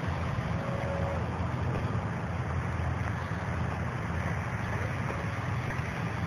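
Wind buffeting the microphone outdoors, a steady low rumble with no distinct engine or voice.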